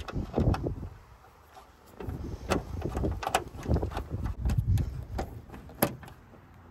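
Screwdriver working screws out of a truck grille: irregular metal clicks and scrapes, with low rumbling handling noise and one sharp click near the end.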